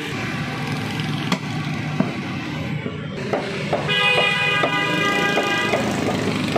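A cleaver knocking a few times on a wooden chopping block as meat is cut, over steady traffic noise. About four seconds in, a vehicle horn sounds for nearly two seconds, the loudest sound here.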